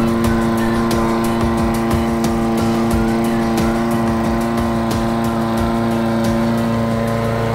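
Briggs & Stratton single-cylinder lawnmower engine running at a steady speed on test after a bent-crankshaft repair; the mower no longer shakes.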